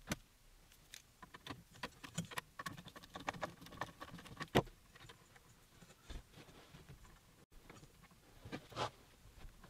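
Scattered small clicks and taps of metal parts and hand tools as the screws holding the nut blocks on a CNC machine's X-carriage are undone. The clicks come thickest in the first half, with a sharper click about four and a half seconds in and another near the end.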